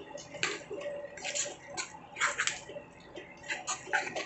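A metal spoon stirring and scraping a thick tomato and onion masala in a steel kadai, in irregular strokes about every half second to a second. The masala is sautéing in oil with freshly added chilli powder, being cooked until the raw smell goes.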